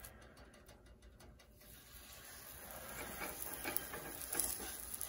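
Paratha dough sizzling faintly on a hot griddle (tawa) as it is pressed down by hand. The sizzle starts about two seconds in and grows steadily louder.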